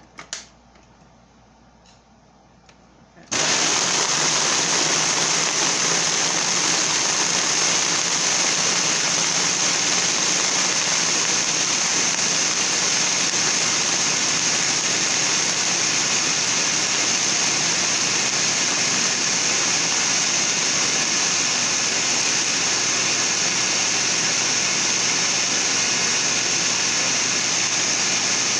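Countertop blender switching on with a sudden jump in level about three seconds in, then running at a steady high speed as it crushes ice with raspberries and lemonade into a slush.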